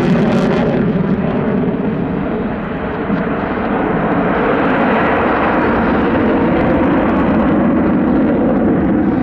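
Loud aircraft engine noise from a flying display. The sharpest high-pitched part fades within the first second as the aircraft moves off, and a steady, dense noise holds on after.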